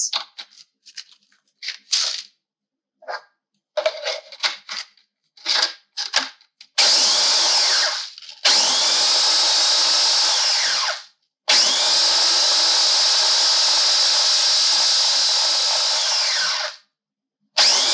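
Oreo cookies clicking and knocking as they are dropped into a small food processor's plastic bowl, then the food processor pulsing to grind them into crumbs. The motor runs in three separate bursts of one to five seconds, and a fourth starts near the end.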